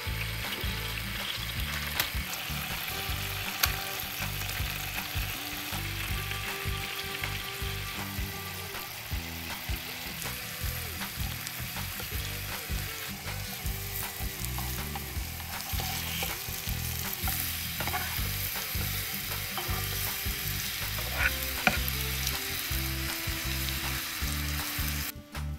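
Banana halves sizzling as they fry in bubbling butter in a nonstick frying pan, with scattered ticks and scrapes of a spatula turning them.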